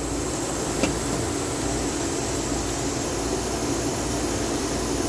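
Steady mechanical whir with a low hum from background machinery, with one brief click about a second in.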